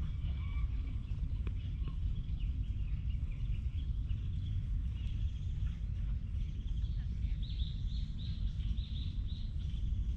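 Birds chirping and calling in woodland over a steady low rumble, with a quick run of about seven repeated high notes near the end.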